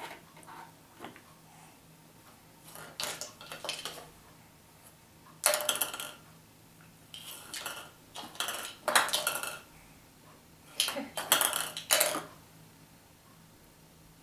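Hard plastic toy parts clattering and knocking in several short bursts, loudest in the second half.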